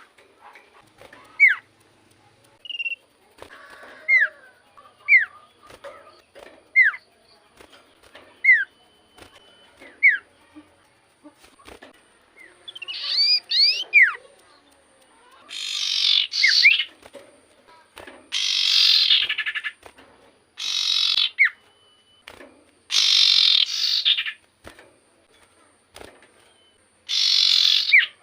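Common iora (cipoh) calling: a series of short, sharp down-slurred whistles about once a second, then from about halfway loud, harsh, raspy bursts around a second long, repeated every two to three seconds.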